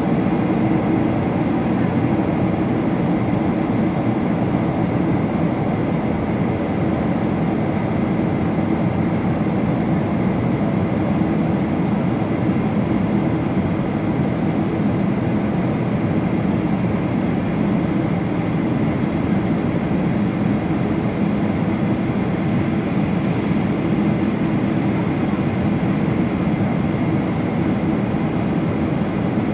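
Steady cabin noise inside a Boeing 737 airliner on descent: a low, even rumble of engines and airflow that does not change.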